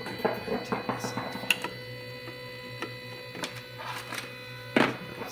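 Stepper motors of an X-Carve CNC driving the gantry on a homing move, a steady whine with light clicks. A single sharp knock near the end.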